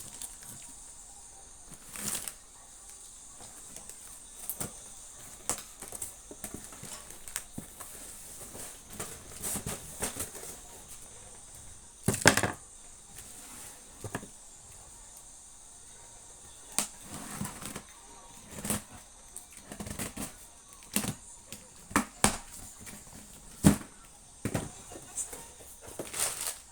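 Chocolate boxes and wrappers being handled and opened: irregular rustling and crinkling with scattered taps and knocks, a few of them sharper.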